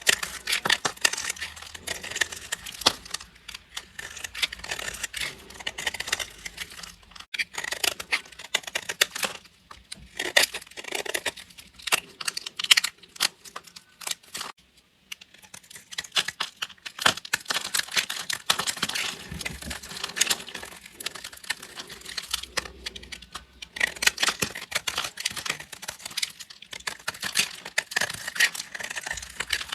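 A blade cutting through crunchy soap: dense runs of crisp crackles and snaps, broken by short pauses between cuts.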